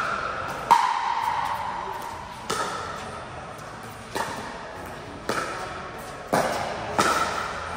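Pickleball rally: paddles hitting the hollow plastic ball, about six sharp pops with a ringing echo from the hall after each, coming faster near the end as the players volley at the net.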